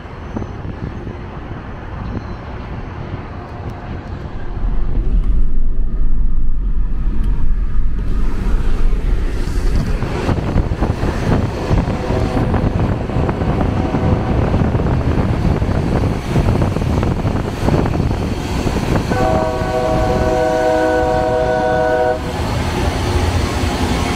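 Loram RG-401 rail grinder train passing close with its grinding stones working the rail: a loud, dense rushing and rasping noise over a low rumble. Near the end its horn sounds one steady chord for about three seconds.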